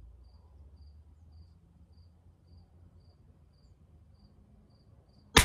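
A faint cricket chirps steadily, just under two chirps a second. Near the end comes a single sharp report from a Bergara B14R .22 LR rifle.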